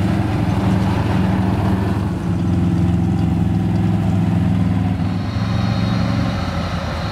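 Can-Am Outlander ATV engines running steadily at low speed as the quads ride by on a dirt trail. The engine note weakens about six seconds in.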